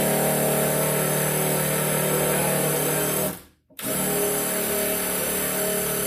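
Impact driver spinning a stripped-screw extractor bit, drilling into a stripped screw head: a steady motor whine that stops for a moment about three and a half seconds in, then starts again.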